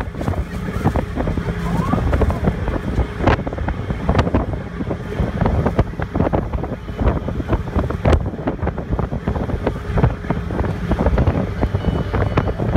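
Wind buffeting the microphone on the open deck of a moving passenger ferry, with irregular gusts over a steady low rumble from the boat.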